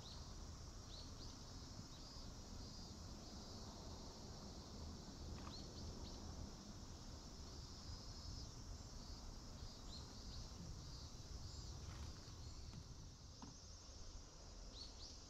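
Faint, steady chorus of summer insects, with a few short bird chirps scattered through it over a low rumble.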